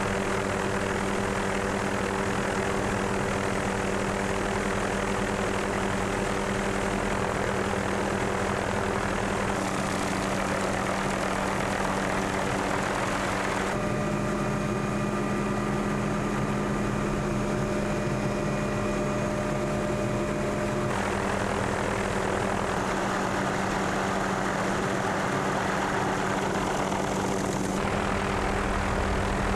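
Steady drone of a helicopter's engine and rotor, heard from inside its cabin, with a constant low hum. The drone changes character abruptly a few times.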